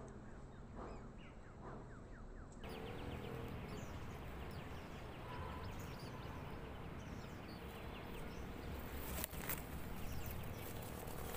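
Outdoor ambience with many faint, short chirping calls from small animals, and a couple of sharp knocks about nine seconds in.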